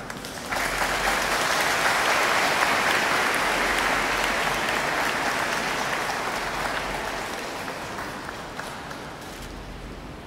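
A congregation applauding. The clapping starts about half a second in, is at its fullest over the next few seconds, then slowly dies away near the end.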